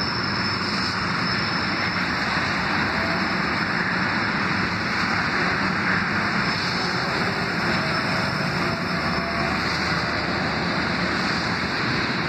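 Steady rumble and hiss of a freight train of hopper cars rolling past, mixed with car tyres swishing on wet pavement as vehicles drive by.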